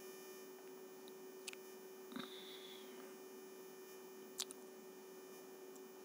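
Faint steady electrical hum, with a few faint clicks.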